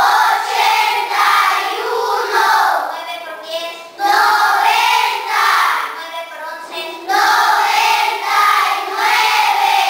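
A class of schoolchildren reciting the multiplication tables together in Spanish, in a sing-song chant of short phrases with brief pauses between them.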